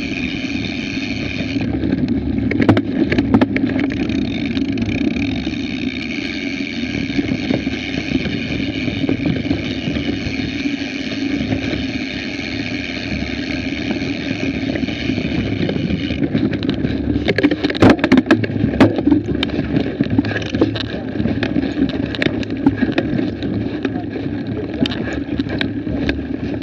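Mountain bike ridden fast on a dirt forest trail: a steady rumble of tyres and wind on the bike-mounted camera, with a steady high buzz from the bike. A run of sharp clatters comes over rough ground about 17 to 20 seconds in.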